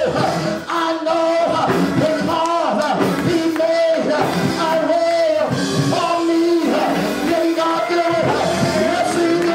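A preacher whooping: the chanted, half-sung close of a Black Baptist sermon, his voice held on long pitched notes that slide and break, with music behind him.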